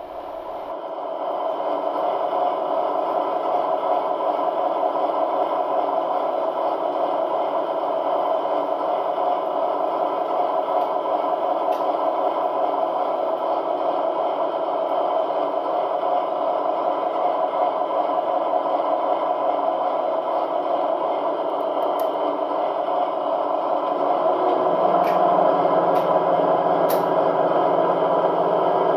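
Gauge 0 model of a DB V100 diesel locomotive running along the track, a steady scraping, rattling run of wheels and drive. About 24 seconds in, a deeper hum joins and the sound gets louder.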